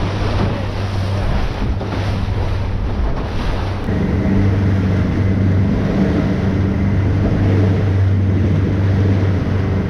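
Yamaha outboard motor running at speed, a steady engine hum that grows stronger about four seconds in. Wind buffets the microphone and the wake rushes and sprays behind the hull.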